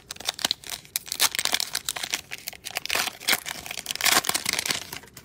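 Foil wrapper of a Panini Illusions basketball card pack being torn open and crinkled by hand: a dense run of sharp crackles.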